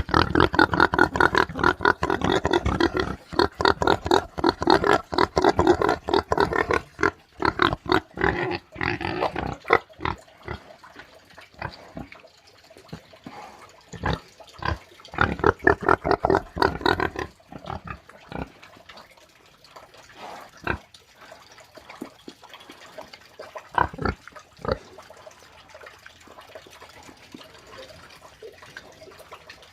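Pig grunting in rapid runs of short grunts, thickest over the first several seconds. Two shorter runs follow, then scattered single grunts toward the end.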